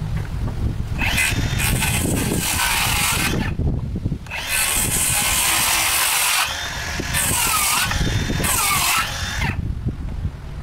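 Handheld circular saw cutting through lumber in four runs with short pauses between, starting about a second in and stopping near the end.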